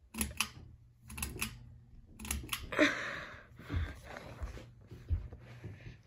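Pull-chain switch on a ceiling fan clicking three times, about a second apart, over the low steady hum of the fan motor. Then comes a louder stretch of rattling and knocking, with scattered knocks after it.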